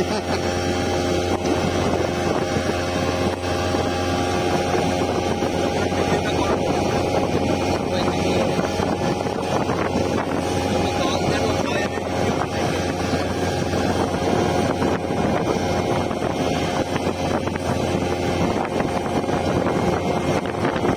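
Speedboat engine running steadily at speed, its even drone mixed with wind buffeting the microphone and water rushing past the hull.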